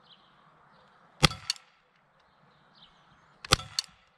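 Two shots from a Walther PPQ M2 4.5 mm CO2 blowback pellet pistol, about two and a quarter seconds apart. Each sharp crack is followed about a quarter second later by a fainter click.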